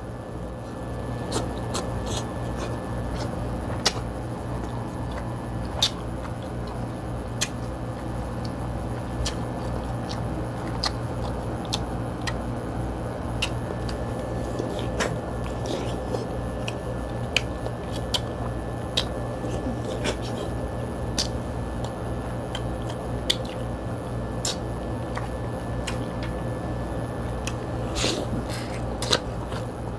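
Close-miked eating of a king crab and corn seafood boil: chewing and mouth sounds, with scattered sharp clicks every second or two as crab shell and food are picked apart by hand. A steady low hum runs underneath.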